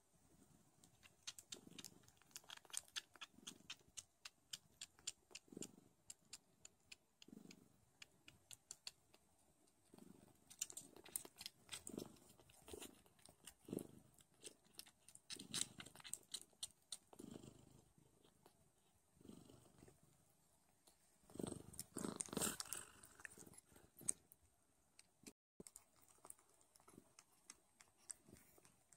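Newborn Don Sphynx kittens suckling at their mother's teats: faint, quick wet clicks and smacks in runs of several a second, growing louder for a moment about three-quarters of the way through.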